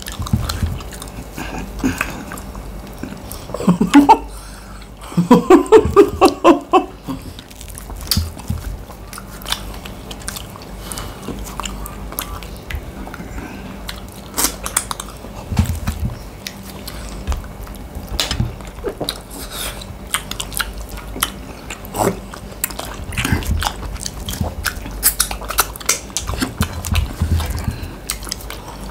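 People eating fast: chewing, biting and many small clicks and smacks of food and utensils. A person's voice sounds loudly twice in short bursts a few seconds in.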